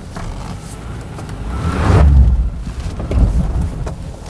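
2017 Honda Ridgeline's 3.5-litre V6 and tyres working along a rough dirt trail at low speed. The low rumble swells to its loudest about two seconds in and then eases off, with a few small knocks through it.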